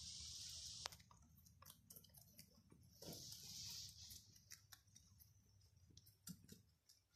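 Rabbits chewing leafy greens from a plate: faint, scattered clicky crunching. A soft hiss runs through the first second and comes back for about a second partway through.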